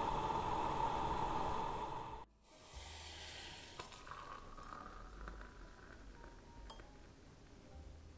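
Coffee machine running steadily, then cutting off suddenly about two seconds in, followed by a few light clinks of crockery.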